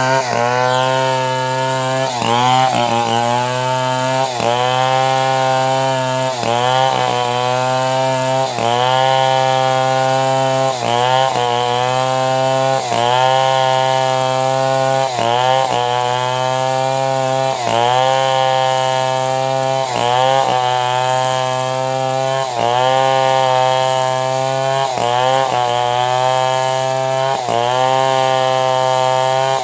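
Two-stroke chainsaw ripping a log into planks, running near full throttle. Its pitch sags briefly and recovers about every one and a half to two seconds as the bar is worked through the cut.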